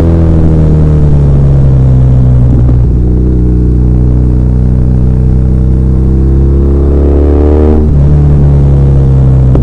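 BMW R1200R's air/oil-cooled boxer twin under way. The revs ease down slowly, then climb steadily and drop sharply just before the end at a gear change.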